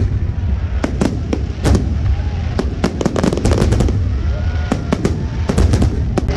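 Fireworks display: a dense barrage of aerial shell bursts, many sharp bangs and crackles coming in irregular clusters over a continuous low rumble.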